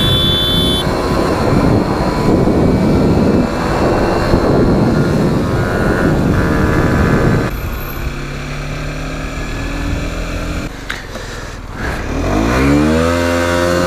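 Motorcycle on the move. For the first half a heavy rush of wind on the microphone covers the engine. Then, more than halfway in, the engine runs on at a steady pitch, and near the end it accelerates, its note rising.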